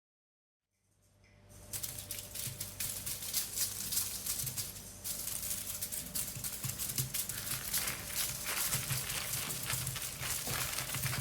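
Dense, irregular crackling of many small snaps, a fire-crackle sound, fading in from silence about a second in, with a low steady hum underneath.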